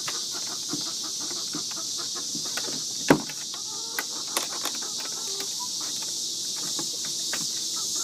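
Hens clucking softly over a steady high chirr of insects, with scattered small clicks and one sharp wooden knock about three seconds in.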